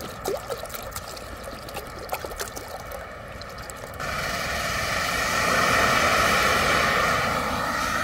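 Water poured from a plastic bottle into a stainless steel pot, splashing and trickling. About halfway through, a camping gas stove's burner comes up as a steady, louder hiss under the pot and runs on.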